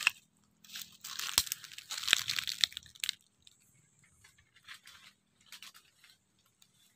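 Dry, cut durian leaves crunching and rustling for about two seconds, from about a second in, followed by a few faint scattered crackles.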